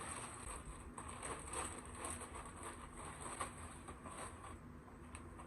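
Faint, irregular rustling and light handling sounds of clothes being handled as someone changes outfits.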